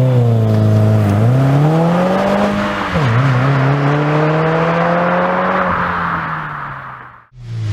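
Exhaust note of a 2015+ Subaru WRX's turbocharged flat-four with an aftermarket exhaust, accelerating: the pitch climbs, drops sharply about three seconds in at an upshift, climbs again, then fades away near the end.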